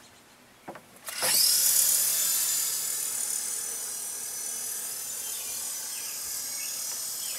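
Small coaxial RC helicopter's electric motors spinning up about a second in, then a steady high whine with rotor wash as it strains to lift off. It is at its payload limit with a camera and 9-volt battery aboard and barely hovers above the ground.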